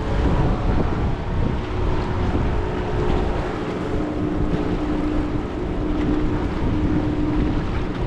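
A passing motorboat's engine droning steadily, with wind rumbling on the microphone.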